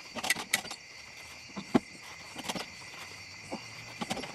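Crickets chirping steadily, with a few scattered knocks and rattles of handling; the loudest is a single sharp knock a little under two seconds in.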